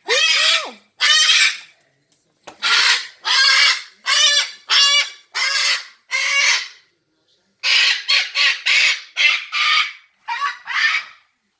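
A parrot calling excitedly: a long series of loud, harsh, honking squawks, about two a second, in several runs broken by short pauses.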